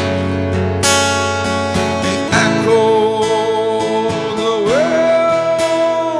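Acoustic guitar strummed, on a Sigma guitar, under a voice holding long sung notes; about three-quarters of the way through the voice slides up to a higher note and holds it.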